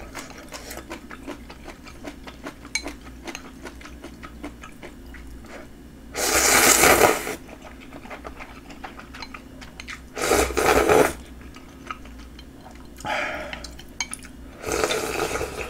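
Instant ramyun noodles being slurped off chopsticks in four loud bursts of about a second each, between light clinks of chopsticks against a bowl.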